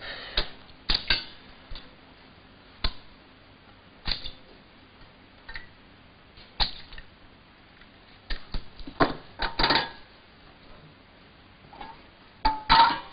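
Frying pan and cooking utensils clattering on a stove: scattered sharp clanks and knocks a second or two apart, busier for a moment about nine seconds in and again near the end, over faint hiss.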